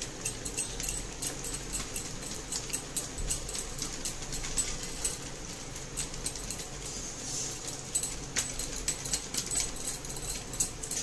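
Arsa pitha, rice-flour and jaggery dough, deep-frying in hot oil: a steady sizzle with frequent irregular crackles and pops of spitting oil.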